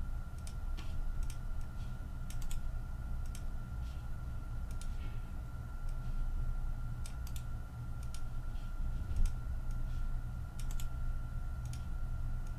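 Computer keyboard keys clicking in irregular short runs with pauses, as entries are copied and pasted into a spreadsheet, over a steady low hum and a thin steady high tone.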